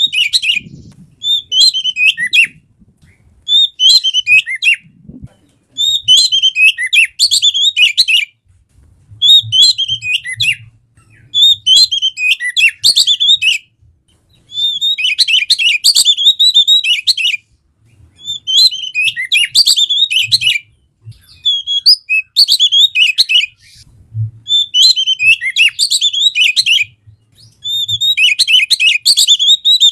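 Oriental magpie-robin (kacer) singing: rapid, varied whistled phrases, each a second or two long, repeated after short pauses.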